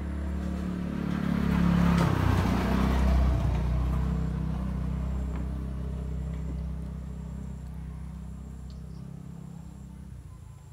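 A passing motor vehicle's engine: a low, steady engine sound that grows loudest about two to three seconds in, then slowly fades away.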